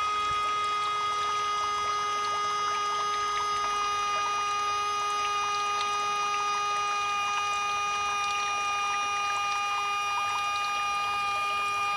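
Small brushed electric motor of a radio-controlled toy jet ski running steadily with a constant whine, driving its water-jet pump with the intake drawing straight from the water. Faint crackle of churned water runs under the whine.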